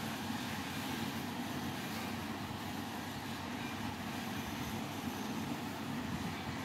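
Steady background noise with a low hum, unchanging throughout; no distinct sound from the kitten or the potato stands out.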